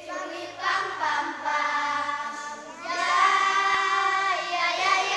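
A group of children singing together, holding long notes.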